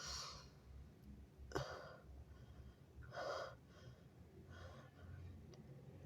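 A person's short, faint gasping breaths, about four of them spaced a second or so apart with the strongest about three seconds in: the catching in-breaths of a sneeze that is building but not coming.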